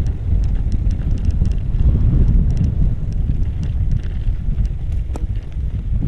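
Wind rumbling on the microphone of a moving e-bike on an off-road trail, with scattered light ticks and rattles throughout.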